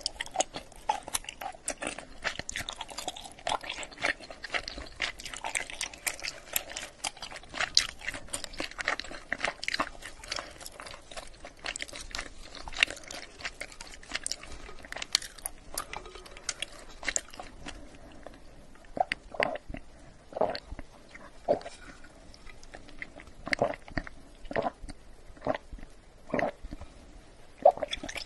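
Close-miked mouth sounds of sucking bubble milk tea up a wide straw and chewing the tapioca pearls. Dense wet crackling clicks in the first half give way to separate chews about once a second.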